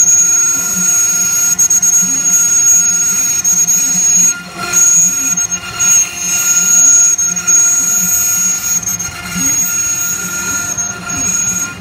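A CNC router's 1.5 kW spindle whining steadily at a high pitch while its bit mills letters into a wooden board, the cutting noise swelling and dipping as the bit moves into and out of the wood.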